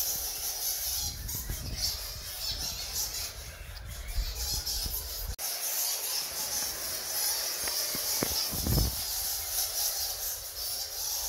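Bats squeaking and chattering in a cave: a dense, high-pitched twittering. Low rumbling handling noise over the first half stops abruptly about five seconds in.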